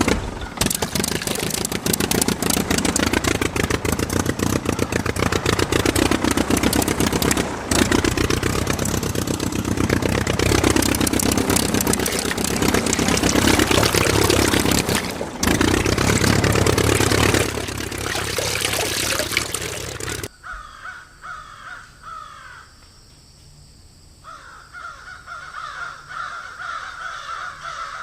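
A small engine, the miniature diesel of a model well-drilling rig, running loud and fast with its speed rising and falling. It stops abruptly about twenty seconds in, and crows can then be heard cawing.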